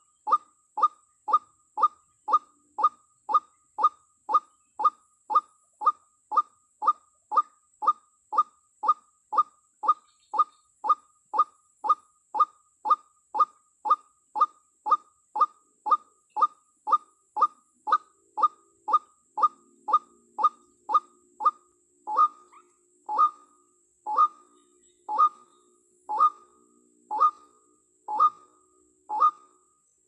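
White-breasted waterhen (ruak-ruak) calling: a short, sharp falling note repeated very evenly about twice a second, then louder and slower, about once a second, from about two-thirds of the way in. This is the female's call that draws in the male.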